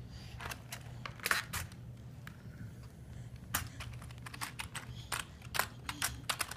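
Plastic computer keyboard handled and its keys slapped at random by two babies' hands: irregular clicks and clacks, a few louder knocks among them.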